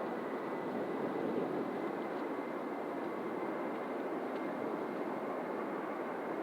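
Jet aircraft engines running steadily, with a thin high whine over an even rush.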